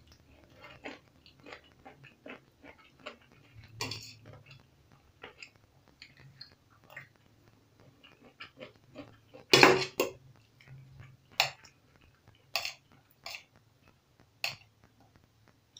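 A metal spoon clinking and scraping against a ceramic plate while scooping rice and stir-fry, with softer chewing and small clicks between. The loudest clatter comes about ten seconds in, followed by several sharp single clinks.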